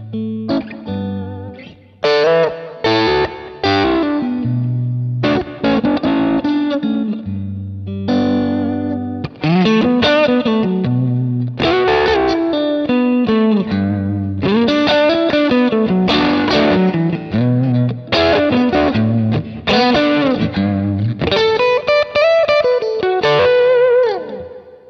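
Strat-style electric guitar on its in-between neck-and-middle single-coil pickup position, played with a good amount of gain through a Kemper amp profile EQed bright: deep, bass and fullness cut, low mids, high mids and treble raised. Chords and single-note lines, ending on one held note that fades out.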